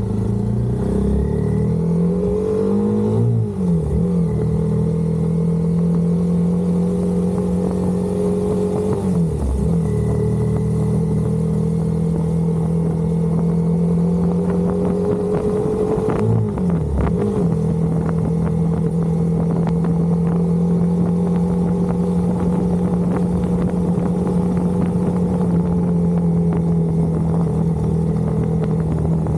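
Honda CBR 250R's single-cylinder engine running at steady road speed. Its pitch dips briefly and climbs back three times, at about 3, 9 and 16 seconds in.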